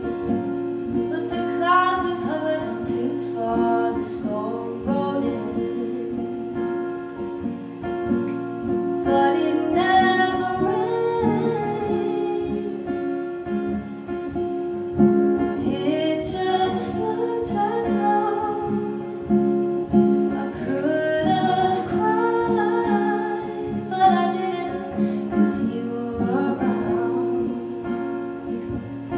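A woman singing solo to her own strummed acoustic guitar, live: the guitar keeps a steady rhythm throughout while her voice comes in in phrases with short gaps between them.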